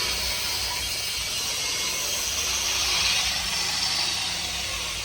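Steady machinery noise: a high hiss over a low, fast rattle, swelling briefly about three seconds in.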